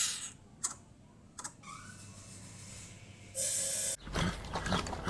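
Juvenile greater coucal giving a few sharp clicks with its beak open, then a short hiss about three and a half seconds in.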